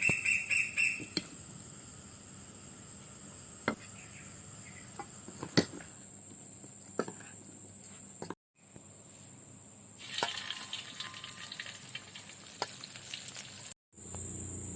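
Chicken nuggets frying in hot oil: a low sizzle with a few sharp clicks, turning into louder crackling near the end. A quick run of high chirps comes at the start, and the sound cuts out briefly twice.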